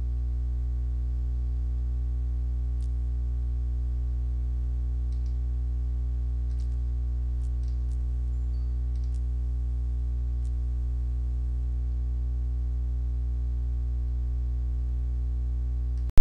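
Steady low electrical hum, mains hum with a stack of evenly spaced overtones, running unchanged. A few faint mouse clicks come between about three and ten seconds in.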